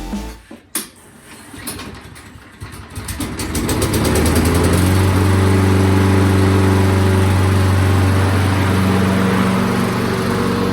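Walk-behind lawn mower's small four-stroke engine coming up to speed and then running steadily and loudly from about four seconds in. It is freshly tuned up, with its blade balanced, and running well.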